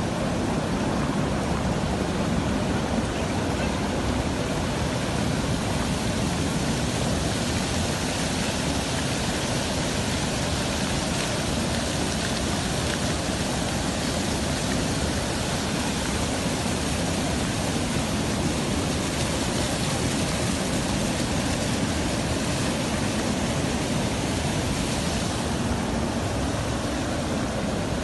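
Muddy floodwater from an overflowing dam rushing past in a strong current: a steady, unbroken rush of water.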